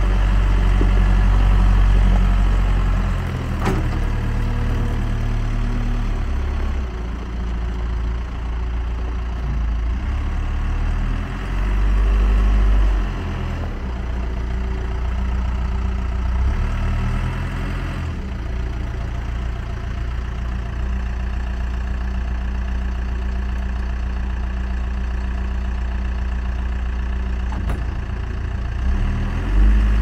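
Diesel engine of a Case 580 Super M loader backhoe running, its speed rising and dropping several times as the machine drives and works its loader. A short knock near the end.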